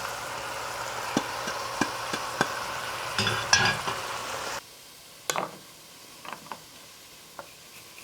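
Whole chicken and onions frying in oil in a pot, a steady sizzle with sharp taps and clinks as spices go in and are stirred. The sizzle cuts off suddenly about four and a half seconds in, leaving only a few soft knocks.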